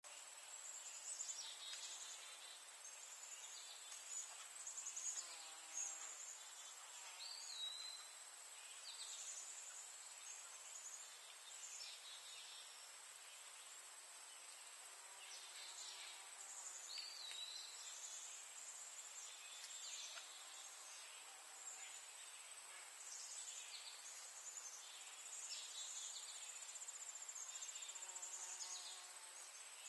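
Faint outdoor insect chorus: a steady high-pitched trill, with short downward-sweeping chirps coming and going over it.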